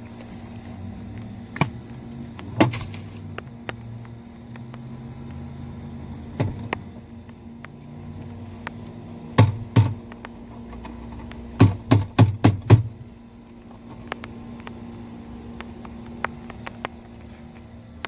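Sharp knocks and clicks from handling a plastic vacuum dust container: single ones, a pair, then a quick run of about five near the middle. A steady low hum sounds underneath.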